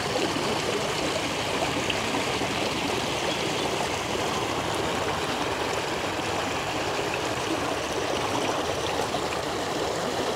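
Running water flowing steadily, an even rushing noise with no change throughout.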